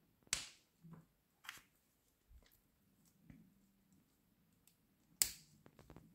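Soft plastic clicks and scrapes from handling a Hasbro Marvel Legends Hammerhead action figure while an interchangeable hand is swapped. Two sharper scrapes stand out, one just after the start and one about five seconds in.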